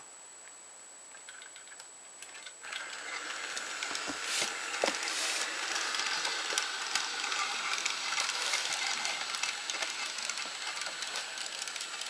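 Small battery-powered toy train motor whirring, with its wheels clicking on plastic track, starting about two and a half seconds in and running steadily; a couple of sharper clicks come shortly after it starts.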